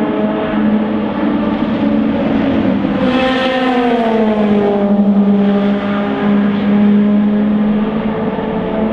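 Endurance race car engines running steadily. About three seconds in, one car passes close by, its engine note falling as it goes past.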